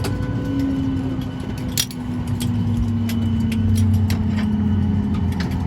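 Cabin hum of a Boeing 737-800's engines, a steady tone sliding slowly down in pitch, as at the end of taxiing to the gate. Scattered sharp clicks and rattles run through it, the loudest about two seconds in.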